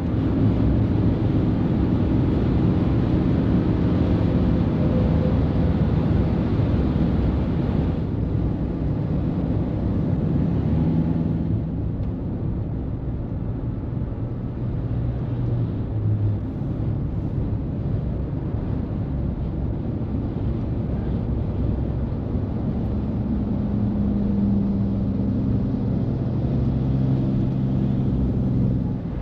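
Heavy diesel trucks running on the road: a steady low rumble with engine tones that shift in pitch as they pull and pass. The sound changes abruptly about 8 seconds in and again about 12 seconds in.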